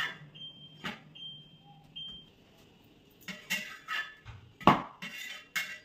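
Flat turner scraping and tapping on a coated tawa while a ragi roti is pressed and turned: a run of sharp clicks and scrapes in the second half, the loudest a little before the end. Three short, faint high tones sound in the first two seconds.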